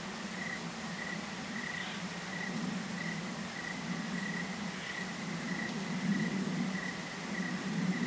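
A cricket chirping steadily, short even chirps a little under two a second, over a low rumble that swells after about six seconds.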